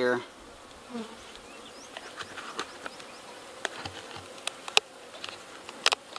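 Honeybees buzzing at the entrance of a plastic nuc box, with scattered sharp clicks and scrapes as the box's corrugated plastic entrance flap is worked open by hand.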